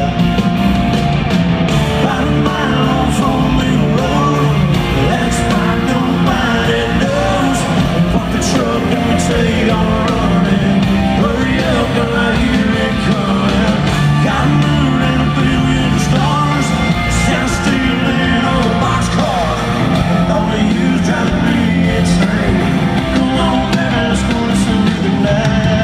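Live country-rock band playing loud through an arena sound system, electric guitar and a steady band sound with singing over it, heard from within the crowd.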